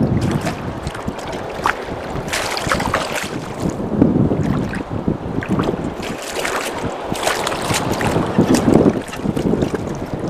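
Wind buffeting the microphone and water slapping against a small boat, with short irregular splashes from a hooked bass thrashing at the surface beside the hull.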